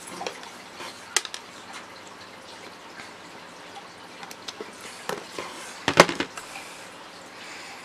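Scattered light clicks of a wire stripper being worked on a length of red wire, with a louder clack about six seconds in.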